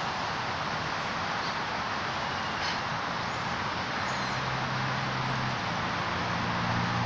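Steady outdoor background hiss, with a low steady hum, like a motor, joining about four seconds in.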